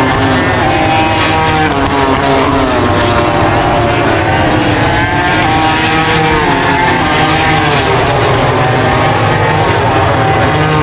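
Several MotoGP race motorcycles' engines at high revs, loud and continuous, their pitches rising and falling as they go through the gears.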